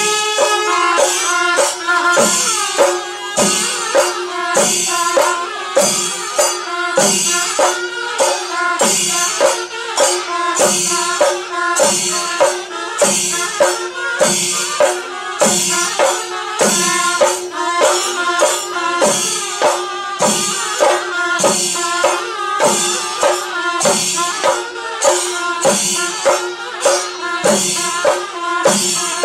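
Kerala temple drum-and-horn ensemble playing: curved kombu horns and a steady held tone over drums, with sharp cymbal-like strikes at an even pace of about one a second.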